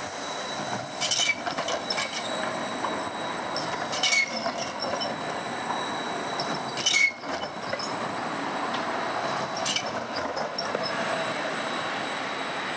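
Siemens Combino low-floor tram rolling slowly past over curved track. Its wheels give a handful of sharp knocks, the loudest about 4 and 7 seconds in, over a steady rolling noise and a thin high squeal.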